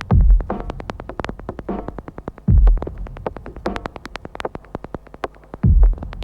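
Electronic music: a fast, steady run of sharp clicks over deep bass hits that drop in pitch, one at the start, one about two and a half seconds in and one near the end. Short synth notes sound in between.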